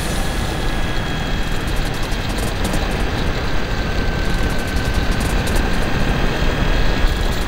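Steady wind rush buffeting a bike-mounted camera's microphone, with a Honda VFR800's V4 engine running underneath as the motorcycle rides at speed.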